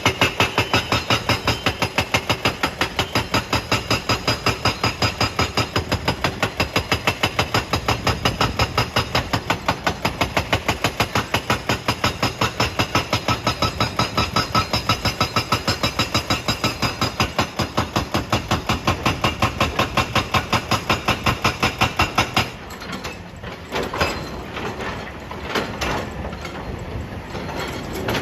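Excavator-mounted hydraulic breaker hammering rock with a fast, even run of blows, several a second, over the machine's engine. The hammering stops about three-quarters of the way through, leaving the engine running with a few scattered knocks.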